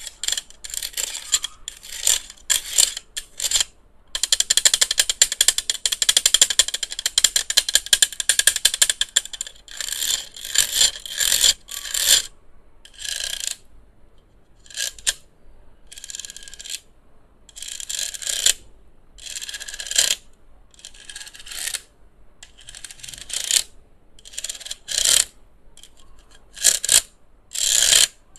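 Small handheld electric fan handled close to the microphone, giving short, irregular bursts of high mechanical whirring and rattling, with one longer run of about five seconds about four seconds in.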